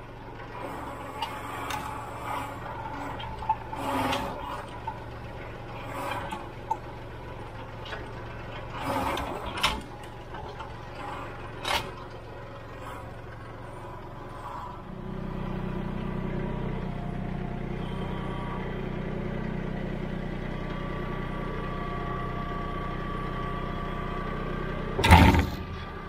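Kubota L3901 tractor's three-cylinder diesel engine running, with scattered sharp metal clanks and knocks over the first half. About halfway through the engine gets louder and holds steady, and two loud thumps come near the end.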